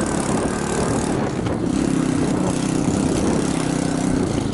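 Small vehicle engine running steadily, getting louder about a second and a half in.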